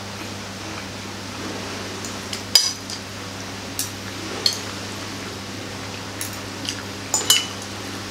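Metal fork and spoon clinking against a plate while mixing noodles: several sharp, separate clinks, the loudest about two and a half seconds in and a quick pair near the end, over a steady low hum.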